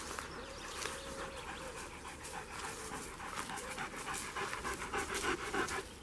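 A dog panting quickly, several breaths a second, growing louder toward the end and cutting off suddenly.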